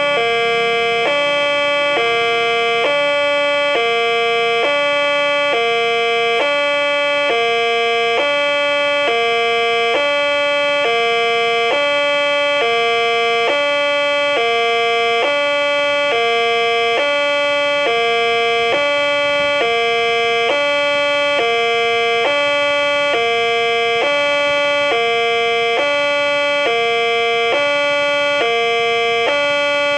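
Indonesian railway level-crossing warning alarm: an electronic two-tone chime switching between a higher and a lower note about once a second, sounding while the barrier is down to warn of an approaching train.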